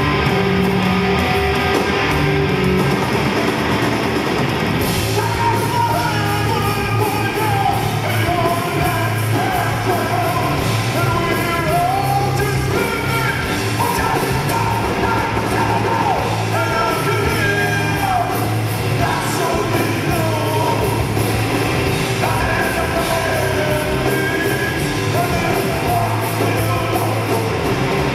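A heavy rock band playing live and loud: electric guitar through amplifiers, and drums played by two drummers on two kits. A male voice sings and yells over it from about five seconds in.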